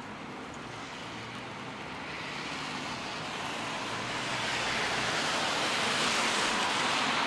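Steady hiss of rain on a wet city street, mixed with the tyre spray of traffic. The hiss swells over a few seconds from about two seconds in and stays loud.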